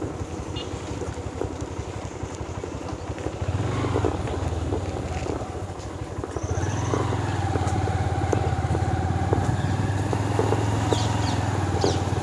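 Motorcycle engine running under way. It picks up about three and a half seconds in and again a few seconds later, then holds a steady pitch.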